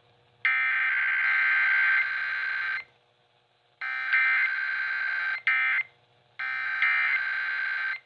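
Emergency Alert System SAME header data bursts played through Midland emergency radios' speakers. Three buzzing tone bursts of about two seconds each, separated by roughly one-second gaps, mark the start of an EAS test message.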